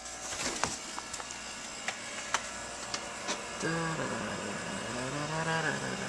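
A few light clicks and handling knocks over a steady low hum, then a man humming two drawn-out notes, the second bending up and back down.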